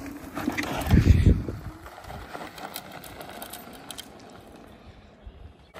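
Inmotion RS electric scooter taking a rider's weight and pulling away: a heavy low thump about a second in, then a steady rolling hum of motors and tyres that fades as it moves off.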